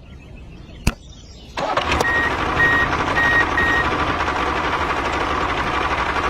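A vehicle engine starts about a second and a half in and keeps running, with four short beeps like a reversing alarm shortly after it starts. A single click sounds before the engine starts.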